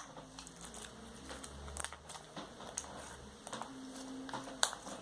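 Glitter slime being squeezed and stretched by hand: faint, scattered small clicks and crackles.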